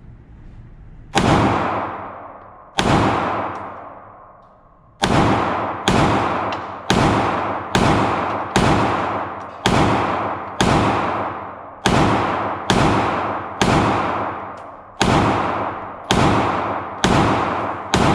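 Handgun shots at a shooting range: two shots, a pause of about two seconds, then a steady string of about fifteen shots roughly one a second, each followed by a long decaying echo.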